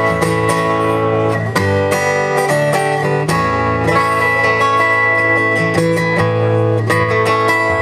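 Acoustic guitar strummed in a steady rhythm, playing the instrumental opening of a song.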